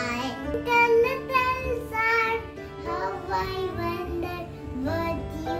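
A young child singing a nursery rhyme over an instrumental backing track.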